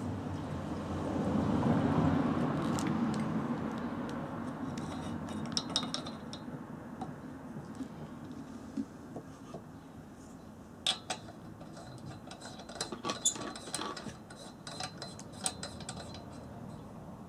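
Gasoline pouring through a plastic funnel into a Coleman pressure lantern's fuel tank. The pour swells about two seconds in and trails off. After it come scattered light clinks and taps, in two clusters, as the lantern is handled.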